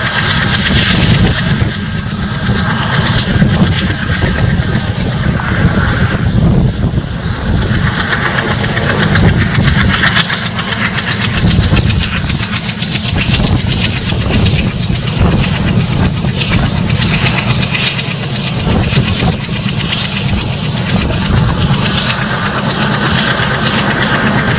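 A train running at speed heard from on board: the WDM-3A's ALCO four-stroke diesel chugging under load over a steady, loud rumble and hiss of wheels on the rails.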